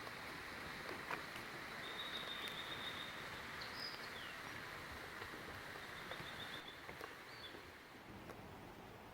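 Quiet outdoor ambience with a steady hiss and small birds calling: short trilled calls about two seconds in and again about six seconds in, with a few brief chirps between.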